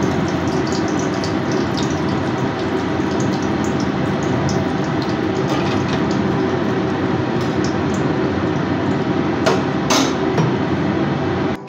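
Hot oil sizzling and crackling steadily in a steel kadai as an egg omelette deep-fries in it, with a few sharper clicks near the end.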